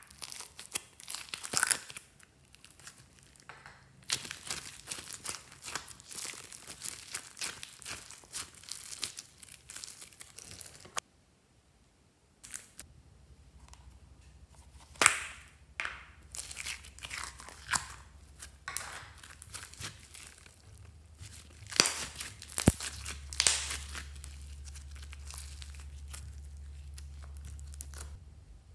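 Crackling, crinkling rustle of polystyrene foam beads in thin plastic cups as they are squeezed and handled over slime, with sharp plastic clicks and taps. A low steady hum comes in about halfway through.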